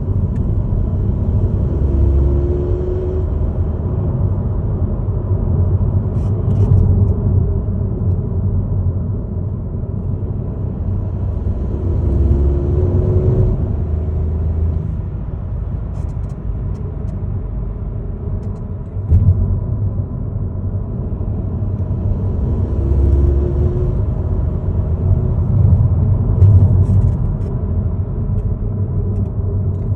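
Ford Focus mild-hybrid car driving with a steady low rumble. Three times, about 2, 12 and 23 seconds in, a rising whine comes in as it accelerates. This is the strange noise under acceleration whose cause the owner does not know.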